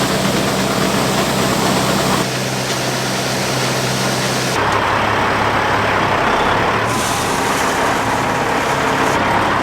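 Heavy grain truck's engine running under way, with the engine note changing abruptly several times.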